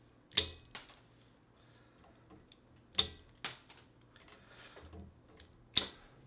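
Multi-tool pliers snipping the excess tails off nylon zip ties: three sharp snaps a few seconds apart, with lighter clicks of the tool in between.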